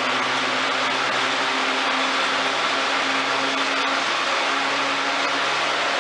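Lawn tractor engine running steadily at a constant speed, driving the restored 50-inch mower deck, with a steady whirring hum.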